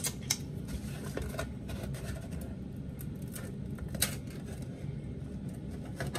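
Scattered light clicks and knocks of a skillet and kitchen things being handled on a counter, the loudest at the start and about four seconds in, over a steady low background hum.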